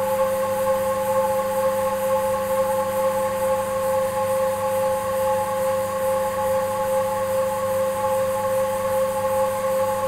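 Servo-hydraulic road simulator running under a car: a steady whine of a few fixed tones from the rig's hydraulic system as its actuators shake the car.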